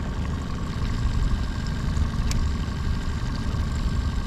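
Wind buffeting the microphone as a loud, uneven low rumble over a faint steady hum, with one sharp click about two seconds in.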